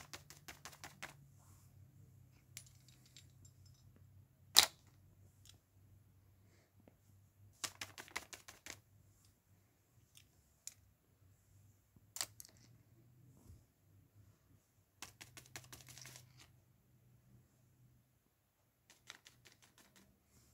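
Small toys handled on paper over carpet: scattered bursts of quick, light clicks and taps, with one sharper click about four and a half seconds in, over a faint low hum.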